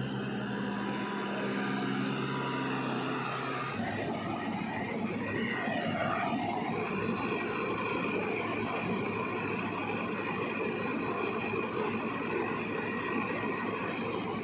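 Balkar B-525 tractor-mounted combine harvester running, its engine and machinery a steady hum at first. After an abrupt change about four seconds in, it runs noisier with a steady high whine while it unloads threshed paddy grain from its auger spout into a trailer.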